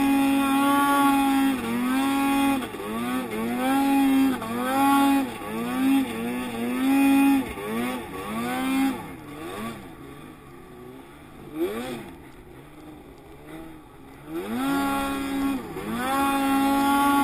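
2014 Arctic Cat M8000 ProClimb snowmobile's 800cc two-stroke twin revving hard through deep powder, its pitch dipping and climbing back about once a second as the throttle is worked. About nine seconds in it falls to a lower, quieter running for several seconds, then revs sharply back up to full pitch near the end.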